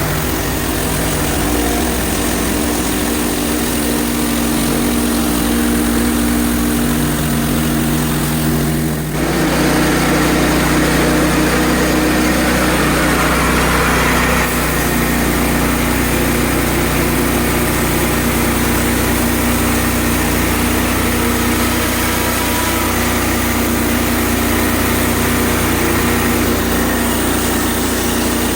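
Portable band sawmill's engine running steadily under the whine of the mill, with an abrupt shift in the sound about nine seconds in.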